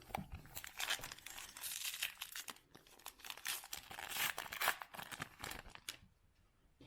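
Crinkling and tearing of a foil baseball-card pack wrapper being handled and ripped open, with a run of dense crackles that dies away about six seconds in.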